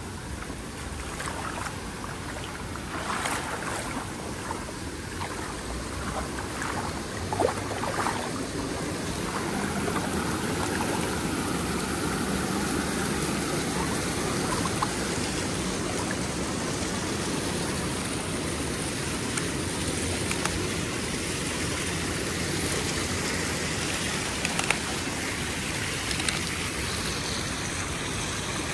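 Steady rush of moving water, with a few brief knocks in the first few seconds.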